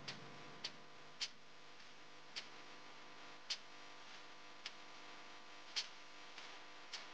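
Thick carrot rice kheer simmering in a pot, with faint, irregular popping clicks from bubbles bursting at its surface, roughly one a second.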